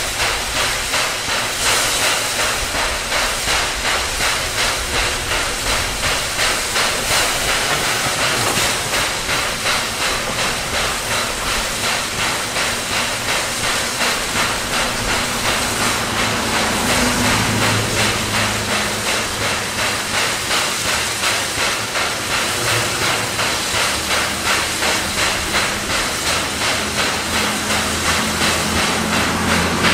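SY-class 2-8-2 steam locomotive working hard at the head of a freight train: a regular, even beat of exhaust chuffs over a steady hiss of steam.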